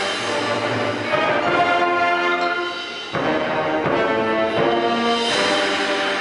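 High school marching band playing: sustained brass chords over front-ensemble percussion with timpani. The music thins and softens, then comes back in loudly with a percussion hit about three seconds in.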